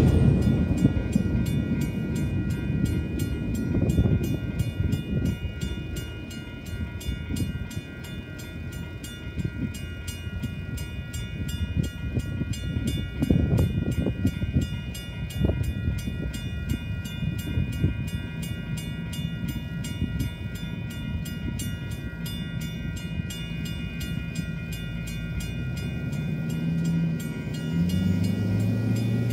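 Railroad crossing bells, a WC Hayes mechanical bell and an electronic bell, ringing steadily while the crossing is active. Under them the rumble of the departing freight train fades over the first several seconds. Near the end a pickup truck's engine comes in as the crossing gates rise.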